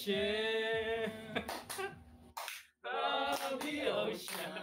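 Young men singing a cappella, holding out the improvised word "Pearlicious", with a few sharp claps keeping time. The sound cuts out briefly about halfway through.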